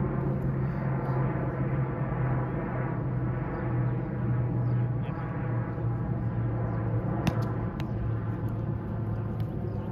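A steady low mechanical hum with a ladder of overtones, like a motor running, throughout; a single sharp tap cuts through it about seven seconds in.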